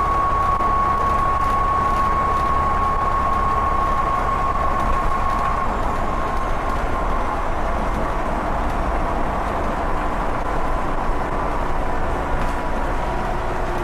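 Volvo B7TL double-decker bus running, its turbocharger whistling in a steady high tone that slowly drops in pitch and fades after about six seconds, over the low drone of the diesel engine.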